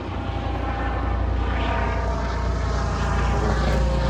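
A steady engine drone that slowly grows louder, over a low rumble of wind on the microphone.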